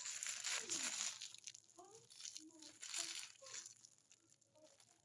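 Plastic or paper packaging crinkling and rustling as a parcel is opened, loudest in the first second. It is followed by a few short, faint vocal sounds.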